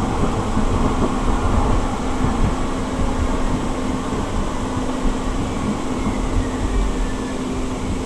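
Ride noise inside a Siemens S200 light rail vehicle in motion: steady rumble of wheels on track with a low hum. In the second half a faint high whine falls slowly in pitch.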